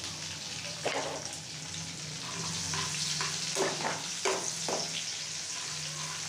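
Oil sizzling steadily in a metal frying pan as garlic, ginger, cumin and green chillies fry for a tadka. A metal spoon stirs through the oil, scraping and knocking against the pan several times.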